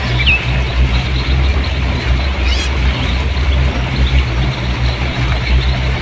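River water rushing and splashing over rocks in a small cascade: a steady loud rush with a deep rumble under it. A small bird chirps once just after the start.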